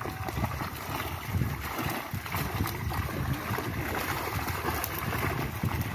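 Shallow pond water sloshing and splashing as men wade and drag a seine net, with milkfish thrashing at the surface inside the net. Wind buffets the microphone.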